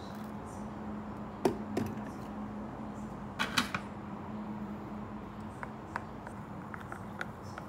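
A few sharp knocks and clicks over a steady low hum: a loud knock about one and a half seconds in with a smaller one just after, a quick cluster of clicks about halfway through, then light ticks.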